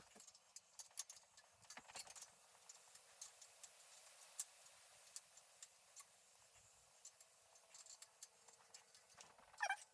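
Near silence with scattered faint, light clicks and ticks, irregularly spaced.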